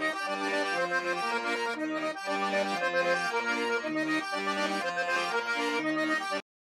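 Short accordion tune with a melody of held notes that changes every fraction of a second, starting abruptly and cutting off suddenly near the end.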